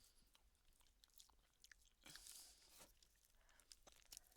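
Near silence with faint eating sounds: soft chewing of a mouthful of mashed potato and a few scattered small clicks.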